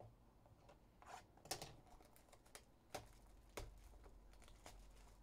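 Faint handling of a cardboard Panini Crown Royale trading-card box being opened: several sharp clicks and taps, with light crinkling and scraping between them.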